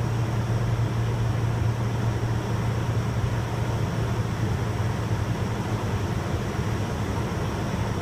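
Steady cabin noise of a jet airliner in cruise flight: an even rushing drone with a strong low hum.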